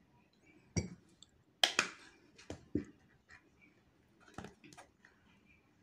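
Plastic bottle of aloe vera gel squeezed out over a ceramic bowl: about six short clicks and knocks of the bottle and spoon against the dish, the loudest about a second and a half in.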